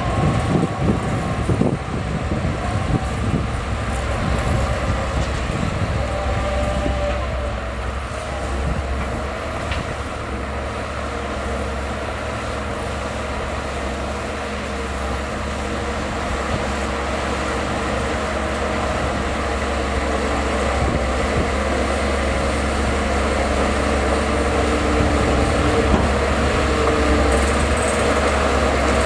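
Bulldozer's diesel engine running steadily under load with a deep rumble. There is some clatter in the first couple of seconds, and it grows gradually louder toward the end.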